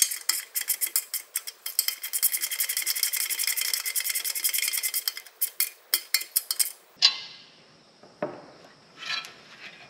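Small hand ratchet clicking rapidly as the retaining nuts on the back of a tail light housing are tightened. The clicking stops abruptly about seven seconds in, and a few faint handling knocks follow.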